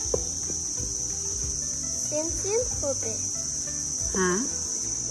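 Steady high-pitched chorus of insects. A sharp click just after the start, a wooden chess piece set on the board, and a few short sliding voice-like calls in the second half.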